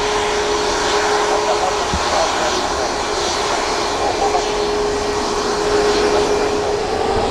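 Jet2 Boeing 757's jet engines running, a steady loud rush of noise with a held whine that rises slightly near the end.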